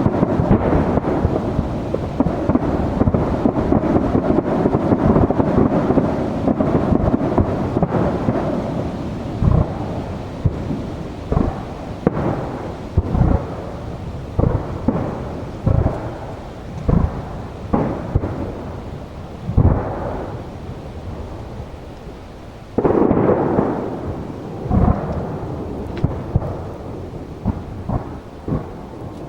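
Aerial firework shells bursting in a display. A dense, rumbling barrage runs for the first eight seconds or so, then single booms follow about one to two seconds apart, with a loud burst about 23 seconds in.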